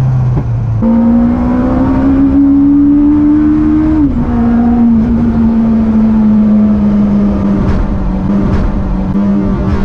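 Yamaha R1 inline-four motorcycle engine in a Mini, heard from inside the cabin while driving: the engine note jumps up sharply about a second in, climbs steadily, drops a little about four seconds in, then holds steady.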